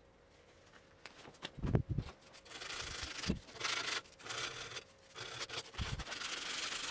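A strip of abrasive cloth rubbed back and forth over a cast brass statuette held in a vise, a rough scraping with each stroke starting about two and a half seconds in. A few low knocks come just before the sanding starts.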